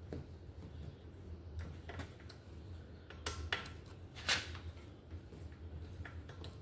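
Small clicks and knocks from hands and tools working on a bicycle's V-brakes, a handful spread out, the loudest about four seconds in, over a low steady hum.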